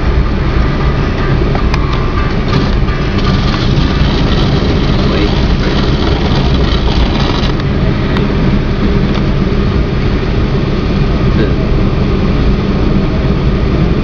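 Vehicle engine idling steadily, with a low hum. A brighter hiss joins about three seconds in and cuts off suddenly about seven and a half seconds in.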